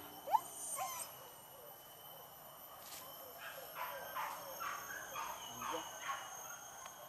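Hunting dogs yelping: one short rising yelp just after the start, then a run of faint short yips about two a second.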